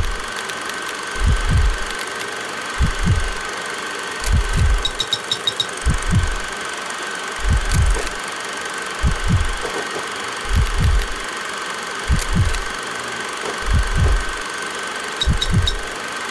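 Sound-design soundtrack: a slow, low double thump like a heartbeat, repeating about every second and a half over a steady hiss with a thin high tone. A short run of quick ticks comes twice, about five seconds in and near the end.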